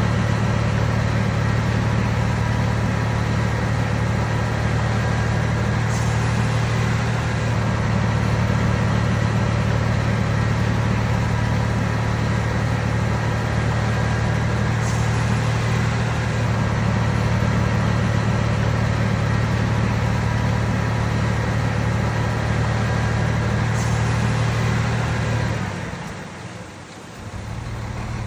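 Komatsu D31PX bulldozer's diesel engine running steadily with a low, even drone. Near the end the sound drops away sharply for about two seconds, then comes back quieter.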